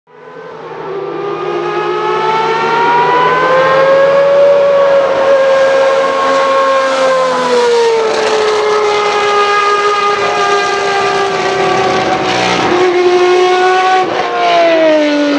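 Ferrari 640 Formula One car's 3.5-litre naturally aspirated V12 running at high revs as the car goes past, its pitch rising and then falling. Near the end the pitch drops in sharp steps, the car downshifting under braking.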